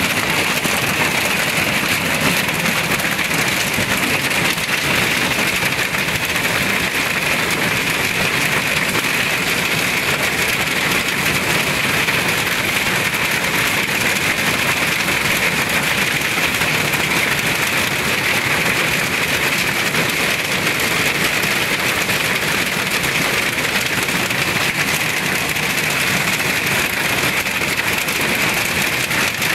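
Hailstorm: hailstones pelting down without let-up, a steady, dense clatter.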